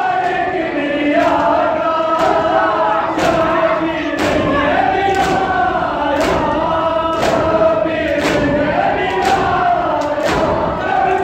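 A men's group chants a noha in unison while beating their chests in matam. The hand slaps land together about once a second, keeping the beat of the chant.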